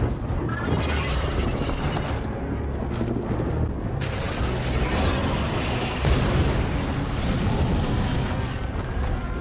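Dragon-battle sound design from the soundtrack: a dense low rumble with booms under music. About four seconds in, a thin, high, wavering screech glides slowly downward.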